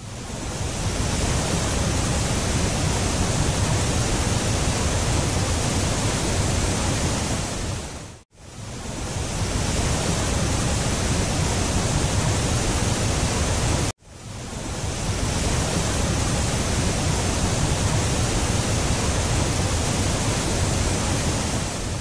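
Waterfalls pouring into a river pool: a steady rush of falling water. It breaks off twice, about eight and fourteen seconds in, and swells back each time.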